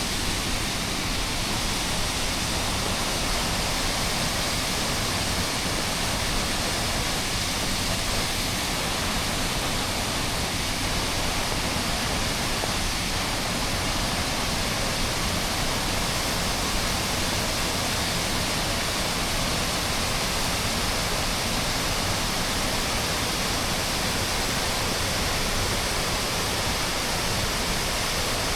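Waterfall water rushing steadily, an even unbroken roar of falling water with no change in level.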